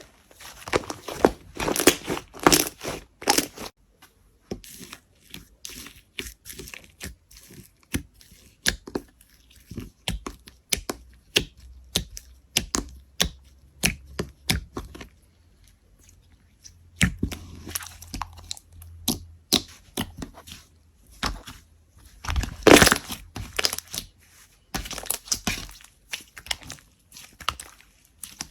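Slime being squeezed, poked and stretched by hand, giving a stream of irregular sticky crackles and pops, with louder clusters about two seconds in and again past the middle.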